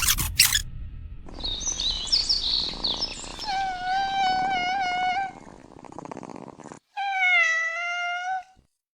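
Two long, drawn-out cat meows with a slight waver in pitch: the first comes after some high, squeaky chirps, and the second starts about seven seconds in.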